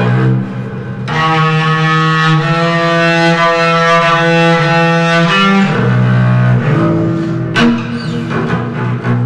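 Music: slow, long bowed double bass notes, one held steady for about four seconds, with a sharp struck attack near the end.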